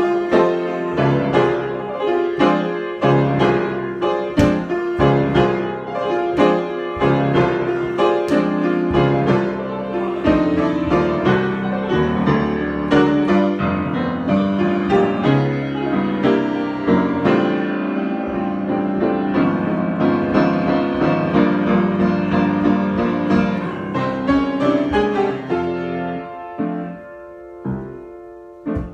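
Solo piano improvisation, dense runs and chords that thin out to a few separate notes near the end.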